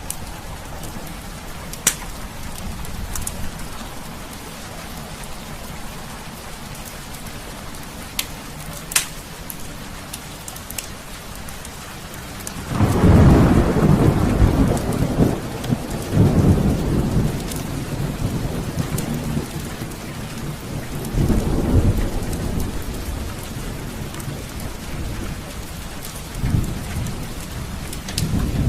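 Heavy rain falling steadily, with a few sharp crackles from a wood fire in the first ten seconds. Thunder breaks in about halfway through and rolls on, swelling again several times.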